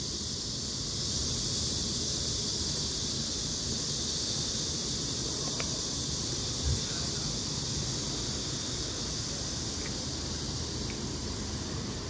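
Wind blowing on a phone microphone: a steady low rumble under a constant high hiss, with one soft bump just past halfway.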